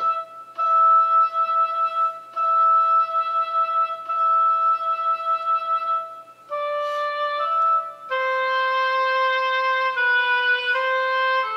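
Slow solo instrumental melody of long held notes, one note at a time, stepping to a new pitch every second or few seconds; music for a moment of silence.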